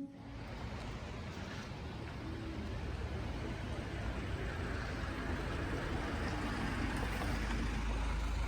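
Steady outdoor background noise with a low rumble, growing slowly louder.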